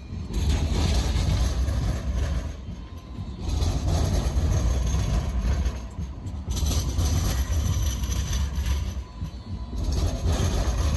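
Alstom Citadis light-rail tram running past on street track, a continuous low rumble of wheels and running gear.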